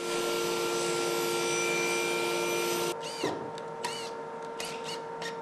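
Table saw running as a board is fed through the blade: a steady whine with cutting hiss. About three seconds in it gives way to a power drill driving a screw into wood, several short whirs that rise and fall in pitch.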